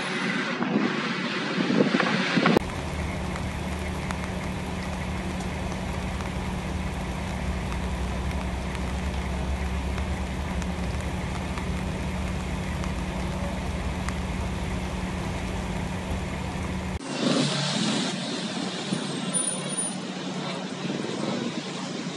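Road traffic on a wet street. About three seconds in, the sound switches abruptly to a steady, even hiss with a low hum. That hiss cuts off suddenly about seventeen seconds in, and uneven traffic sounds return.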